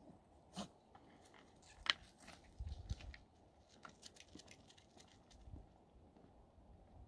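Footsteps crunching on gritty asphalt, with scattered sharp clicks (the loudest about two seconds in) and a few low thumps.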